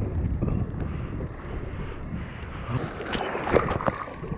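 Ocean surf washing and splashing around a camera held at the water's surface as a small breaking wave passes, with a burst of sharper splashes about three seconds in.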